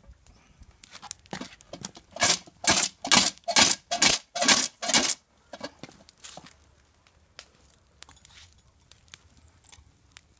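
Metal clinking and rattling from a pot hanging on a tripod chain as it is handled: about seven loud clanks roughly half a second apart. After them, faint scattered ticks of the wood fire crackling.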